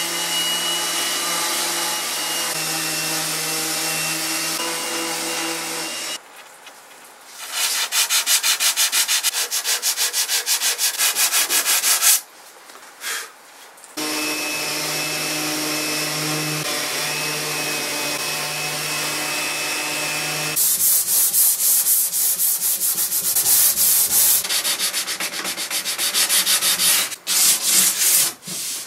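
Electric random orbital sander running steadily with a high whine, sanding paint off a wooden drawer. Cut in with stretches of fast, even back-and-forth strokes of sandpaper rubbed by hand over the wood.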